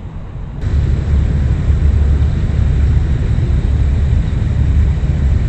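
DJI Mini 2 drone taking off: its propellers start abruptly about half a second in, and a steady, loud rushing noise, heaviest in the low end, runs on.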